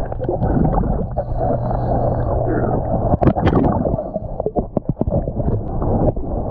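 Underwater recording of a scuba diver's breathing: exhaust bubbles gurgling and crackling past the camera, with a steady low hum that stops about three seconds in.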